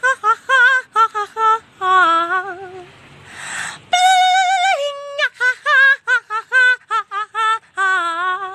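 A woman's high-pitched voice singing in short, wavering syllables with heavy vibrato. After a breathy pause it holds one long note about four seconds in, then drops to a lower one.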